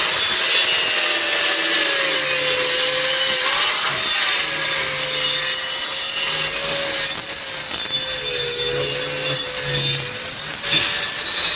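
Angle grinder sharpening the steel edge of a hydraulic log-splitter blade: a steady grinding whine that wavers slightly in pitch as the disc bears on the metal.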